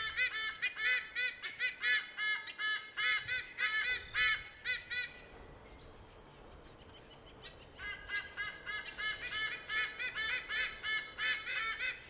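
White-bellied sea eagle calling: a rapid series of goose-like honking notes, about four or five a second. The calls break off about five seconds in and start again about three seconds later.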